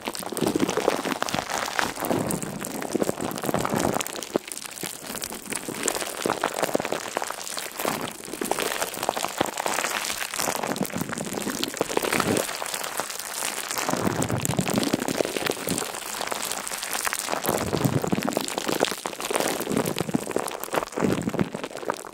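Dense, continuous crackling and crunching made of many tiny clicks, swelling in strength every two or three seconds.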